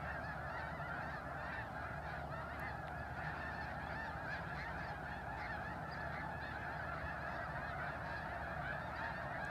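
A large flock of snow geese calling all at once: a dense, steady chorus of overlapping honks with no break.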